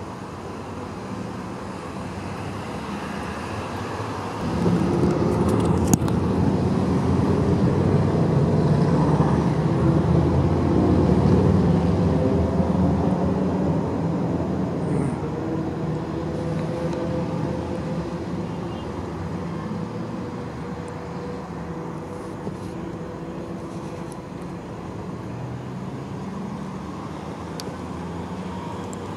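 Motor vehicle engines running at an intersection. A louder engine sound sets in suddenly about four seconds in, holds for about ten seconds, then fades gradually.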